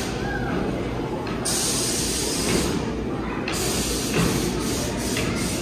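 A hiss lasting about two seconds, starting about a second and a half in, over a steady low rumble of background noise.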